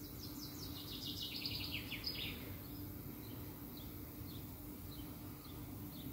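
A songbird singing a fast trill of repeated high notes for about two seconds, then a few scattered short chirps, over a steady low background hum.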